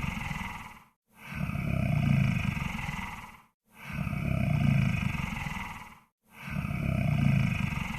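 Monster snore sound effect: deep, rattling snoring breaths, each swelling and then fading over about two seconds, repeating about every two and a half seconds with short silent gaps between them.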